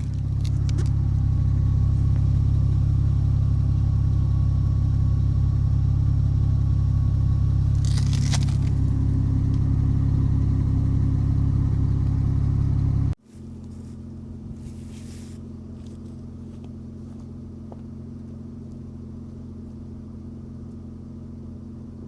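Honda Accord V6 running steadily through a loud aftermarket exhaust with Flowmaster 60 series mufflers, a ceramic header and a straight pipe in place of the catalytic converter: a deep, even idle. About 13 seconds in it cuts off suddenly to a quieter, steady idle.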